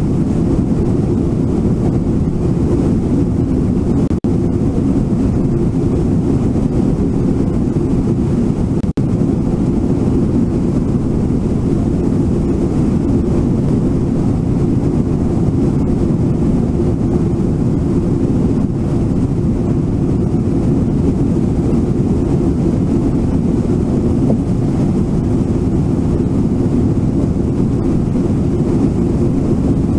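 Brooks River water rushing: a loud, steady, deep rush that never changes.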